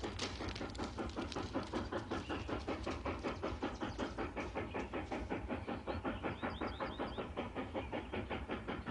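An approaching train heard from a distance, a rapid, even beat of several strokes a second.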